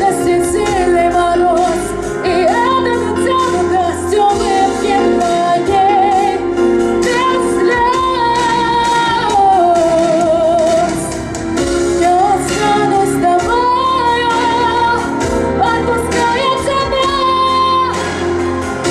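A woman singing a pop song over instrumental accompaniment, her voice holding long, wavering notes.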